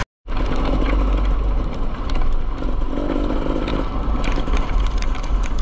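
Dirt bike engine running steadily under way, mixed with wind rushing over a helmet-camera microphone. The sound drops out for a split second at the very start.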